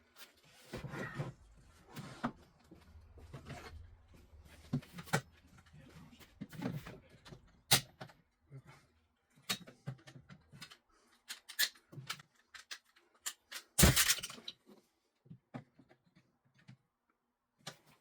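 Irregular knocks and clatters of boards and tools being handled in a woodshop, with a loud knock about 14 s in and a faint low rumble through the first half.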